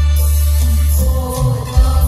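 Live mor lam band music played loud over a stage sound system, with a heavy sustained bass line under pitched instrument and vocal lines. The bass drops out briefly about a second in, and a sharp drum hit near the end brings it back.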